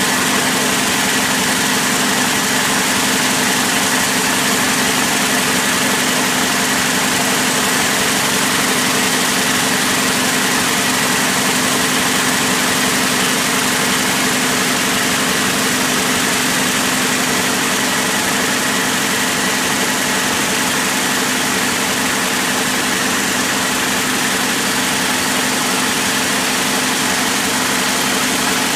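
High-speed braiding machine running steadily: a dense, even mechanical noise with a steady hum.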